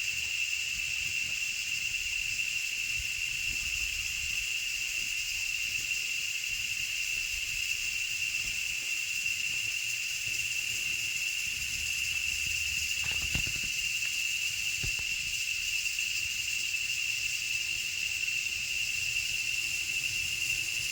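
Rainforest insects droning steadily in one unbroken high-pitched chorus, with a couple of faint knocks about two-thirds of the way through.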